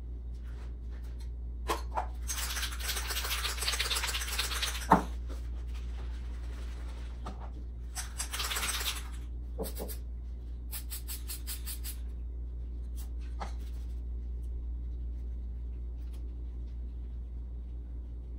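Scattered handling noises at a craft table: rustling in short stretches, a few light clicks and one sharp tap about five seconds in, over a steady low hum.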